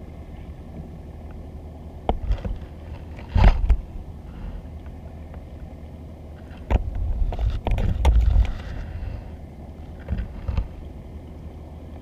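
Underwater noise heard through a GoPro's waterproof housing as the camera moves over a weed-covered seabed: a steady low rumble of water. Clusters of knocks and low thumps come about two seconds in, around three and a half seconds, through most of the stretch from about seven to nine seconds, and again near ten and a half seconds.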